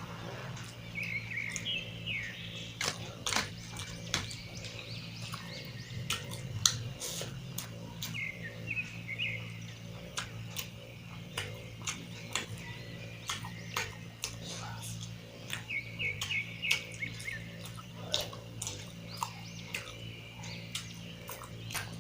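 Close-up wet chewing and lip-smacking of someone eating mutton curry and rice, a steady run of irregular sharp smacks. Short bird chirps come three times in the background.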